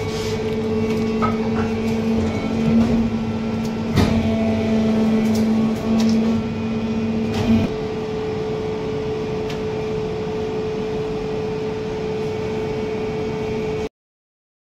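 Plastic egg-tray moulding machine running with a steady mechanical hum, with sharp knocks about 4 and 7.5 seconds in. The sound cuts off abruptly shortly before the end.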